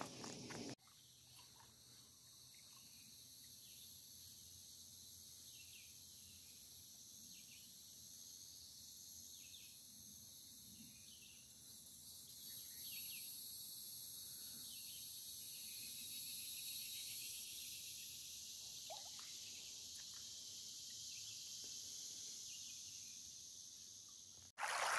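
Steady high-pitched chorus of insects, with a few faint short chirps mixed in.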